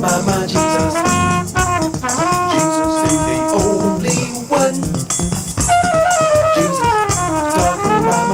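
Instrumental music with a brass lead, likely trumpet, playing a stepping melody over a steady drum beat, with a long falling run of notes about six seconds in.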